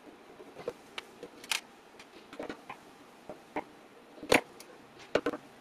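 Screwdriver and metal cover plate of a bomb release controller being handled as its screws are taken out: scattered small clicks and metal taps, the loudest a little past four seconds in and two close together about five seconds in.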